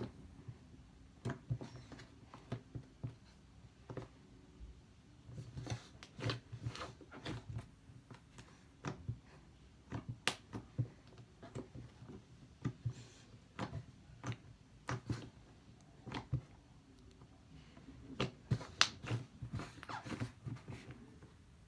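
Fluffy slime being poked and stretched by hand, giving an irregular run of small sticky clicks and pops as air bubbles in it burst.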